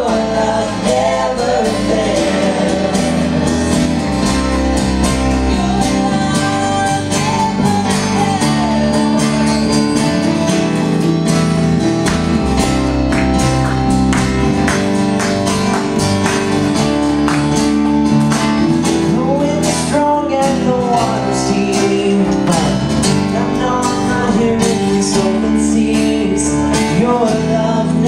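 Live worship band playing: electric and acoustic guitars, keyboard and drums hold a steady groove, with a few sung phrases from the vocalists.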